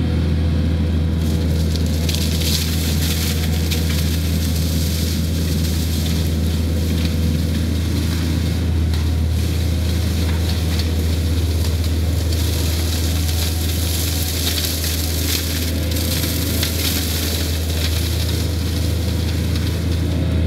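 Takeuchi TL130 compact track loader's diesel engine running steadily under load with a deep hum, while its front mulcher head shreds brush. The hiss of shredding grows and fades in stretches as the head works into the bushes.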